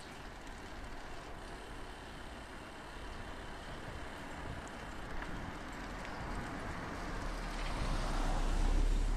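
A car driving past close by, its engine rumble and tyre noise swelling to a peak near the end.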